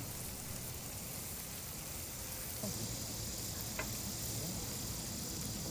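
Food sizzling as it cooks: a steady hiss that turns brighter about two and a half seconds in, with a light click a little after.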